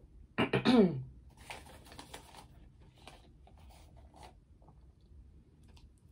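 A brief closed-mouth vocal hum falling in pitch, made with a mouthful of cornstarch, about half a second in. It is followed by about a second of scratchy noise as the spoon digs into the powder, then faint scattered clicks of the spoon and chewing.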